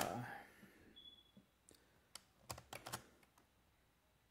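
Computer keyboard keystrokes: a few scattered taps, then a quick cluster of several keys about two and a half seconds in.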